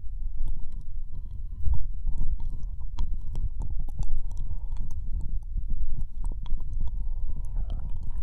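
Ear-licking sounds close against a binaural microphone: many quick wet tongue and lip clicks over a steady low rumble.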